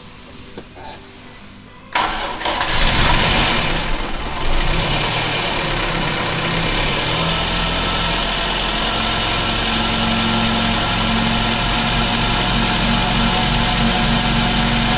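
Freshly rebuilt VAZ 21083 1.5-litre four-cylinder engine making its first start after overhaul: it catches on the first crank about two seconds in, runs up briefly and unevenly, then settles into a steady idle.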